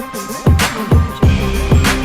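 Electronic music with a heavy beat: deep kick drums and sharp snare hits, the bass dropping out briefly about half a second in.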